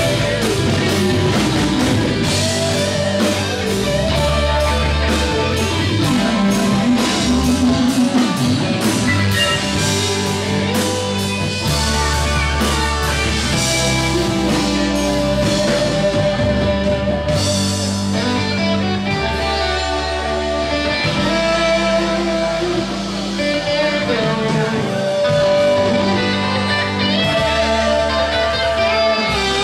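Live blues-rock band playing: electric guitar, bass guitar and drum kit, with saxophone lines over the top, loud and steady throughout.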